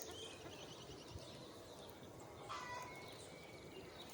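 Faint bird calls over a quiet steady rush of wind: a quick run of short high chirps in the first second, then another call about two and a half seconds in.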